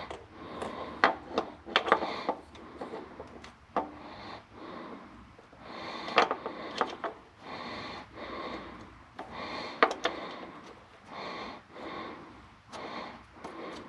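Metal handling as a new fuel transfer pump is worked by hand onto its mount on a Caterpillar 3406B diesel engine: irregular sharp clicks and knocks, with softer scraping noise in between.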